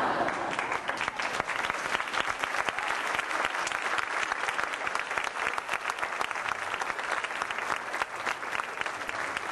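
A crowd applauding with dense, steady clapping, loudest right at the start.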